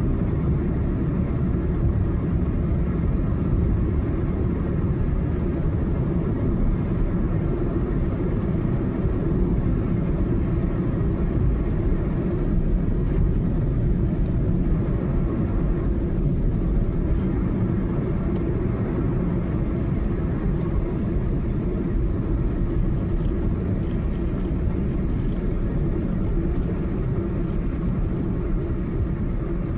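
Steady road noise of a car driving on the highway: a constant low rumble of tyres and engine.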